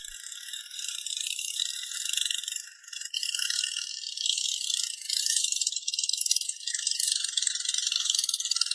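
Dense, shrill chorus of buzzing insects with a fast pulsing, growing louder about three seconds in.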